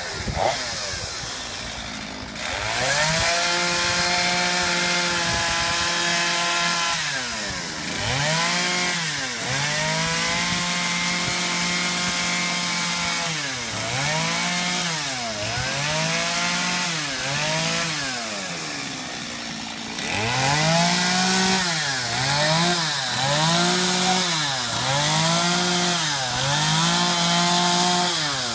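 Two-stroke chainsaw carving into a wooden log, its engine running at high revs for stretches and repeatedly dropping back toward idle before revving up again. In the second half the throttle is let off and squeezed again about once a second.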